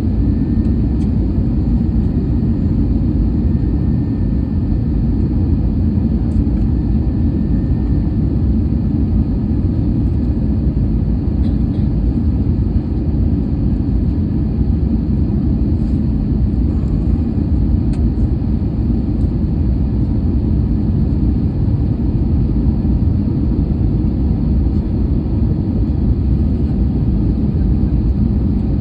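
Steady low roar inside the passenger cabin of an AirAsia Airbus A320-214 in flight: air rushing past the fuselage and the CFM56 engines running, with no change through the stretch.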